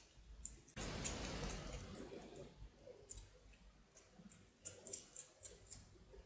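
Small metal parts clicking and clinking in the fingers as a screw is fitted into a small metal fitting. A soft rustling noise comes about a second in, and a run of light clicks follows later.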